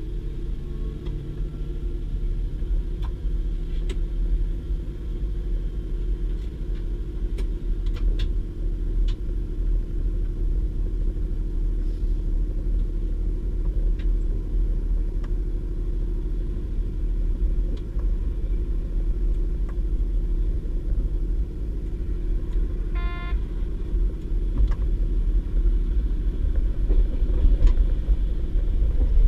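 Steady low rumble of a DB Class 612 diesel railcar running along the line, heard from inside the car: underfloor diesel engine hum and wheels on the track, with scattered light clicks. A brief high tone sounds once about 23 seconds in, and the running noise grows a little louder near the end.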